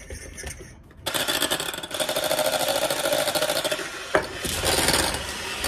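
Electric hand mixer whipping custard with whipped-cream powder. The motor starts about a second in and runs steadily, with one sharp click about four seconds in.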